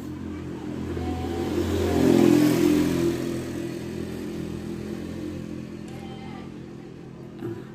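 A passing motor vehicle swells and fades over a few seconds, loudest about two seconds in, over a steady engine hum.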